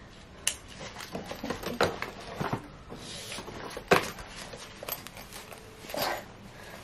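Fabric belt bag being handled: a handful of sharp clicks and scrapes from the strap and its adjuster as the strap is worked and pulled over the head, with a brief rustle of fabric.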